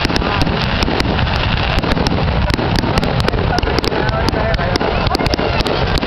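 Fireworks finale: a dense, unbroken barrage of aerial shells launching and bursting, many sharp bangs and crackles every second.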